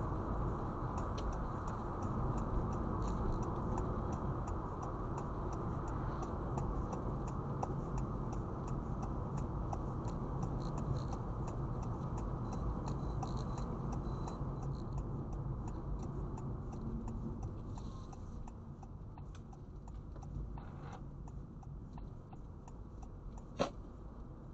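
Steady low road and engine noise of a car driving, with many faint scattered ticks over it. The noise grows quieter after about three quarters of the way through, and a single sharp click comes near the end.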